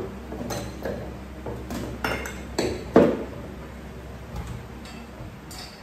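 Glass bottles and dishes clinking and knocking as they are handled and put away in a lower kitchen cabinet: a string of separate knocks and clinks, the loudest about three seconds in.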